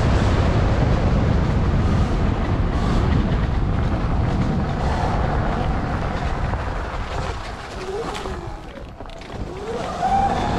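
Heavy wind noise on the microphone, with a motorbike's motor rising in pitch a couple of times in the last few seconds.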